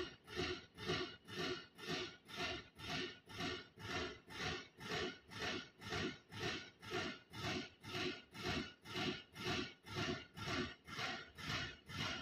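Engine oil being pumped into a truck engine's filler through a metered oil gun, with an even pulsing a little over two times a second as the air-operated oil pump strokes.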